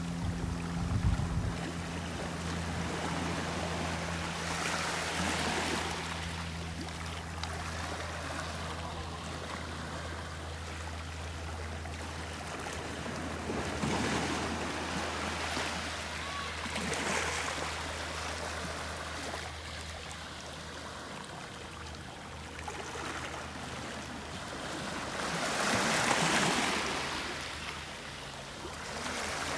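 Small sea waves washing in over rocks and pebbles, the wash swelling and falling back several times, the biggest surge near the end. A steady low hum runs underneath for much of the time and then fades.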